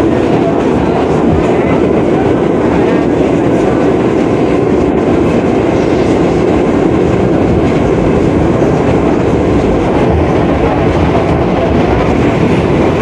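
New York City Subway R62A car in motion, heard from on board: the steady running noise of wheels and motors on the rails, holding even throughout.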